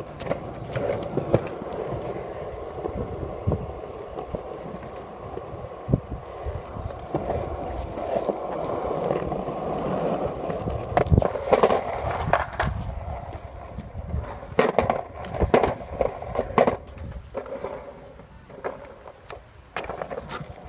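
Skateboard wheels rolling over a concrete skatepark surface in a continuous rumble. From about halfway through come several sharp clacks and knocks from the board.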